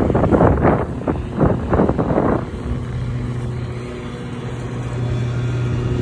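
Wind buffeting the microphone in gusts for the first couple of seconds, then a steady engine hum.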